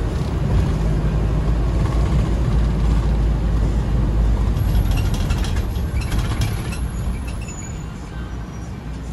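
Toyota Coaster minibus running on the road, a steady low engine and road rumble. About halfway through comes a short spell of high-pitched clicks and squeaks, and the rumble quietens near the end.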